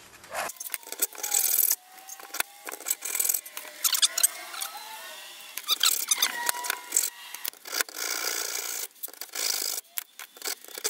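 Irregular scraping and rubbing strokes with squeaky gliding tones, as the steel case and end cap of an 18650 lithium-ion cell are worked open against a wooden bench.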